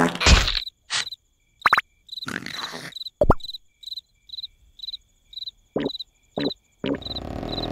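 Crickets chirping in a steady rhythm, about two chirps a second, as cartoon night ambience. Short comic sound effects break in: a few sharp squeaks and clicks, and brief bursts near the end.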